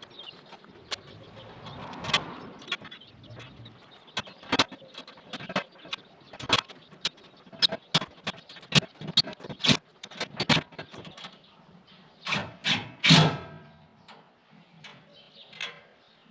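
Sped-up clicking and metallic clinking of tools and hardware being handled while a part is fastened down. It comes as a rapid, irregular string of sharp knocks, with the loudest one near the end.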